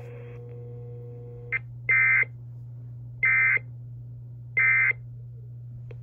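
EAS end-of-message (EOM) code sent three times: three short, raspy digital data bursts, each about a third of a second long and about 1.3 seconds apart, closing the NOAA Weather Radio required weekly test. A steady low hum runs underneath.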